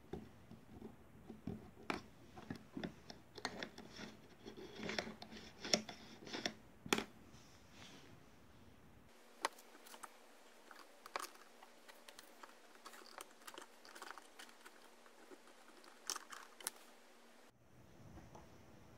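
Faint clicks and taps of small metal and wooden parts being handled and fitted together by hand on a homemade syringe compressed-air engine. The clicks come thick and fast for the first several seconds, then more sparsely.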